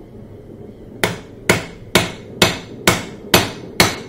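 Steel hand hammer striking metal at a hydraulic forging press, a regular run of ringing blows about two a second, starting about a second in. Under the blows runs a steady low hum.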